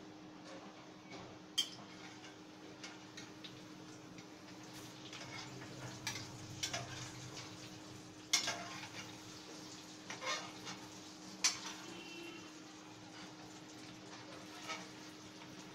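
Long steel spoon clinking and scraping against a steel kadhai as koftas are placed and turned in hot oil, over a faint sizzle of frying and a steady low hum. About seven sharp clinks, the loudest about eight seconds in.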